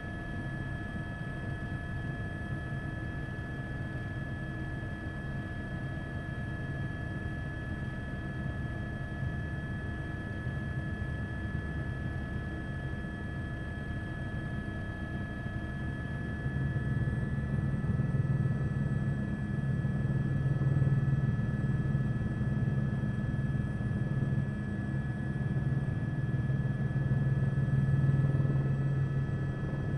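News helicopter engine and rotor noise: a steady low rumble with a constant high whine over it. The rumble grows louder a little past halfway and stays up.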